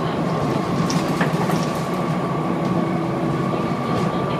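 Volvo B7TL double-decker bus heard from inside while it is running, a steady rumble with a constant high whine running through it. A few light rattles come about a second in.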